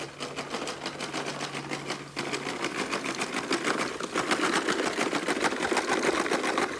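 Plastic toy push lawn mower clicking rapidly and evenly as it is pushed across grass, getting louder about two seconds in and again about four seconds in.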